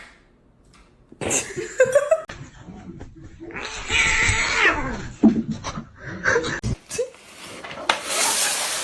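A cat yowling in drawn-out cries, the loudest a long falling cry about four seconds in.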